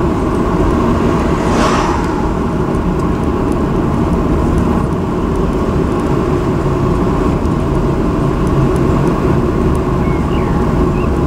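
Steady engine and road noise of a vehicle driving along at speed, heard from inside the cabin. About two seconds in, an oncoming car passes with a brief whoosh.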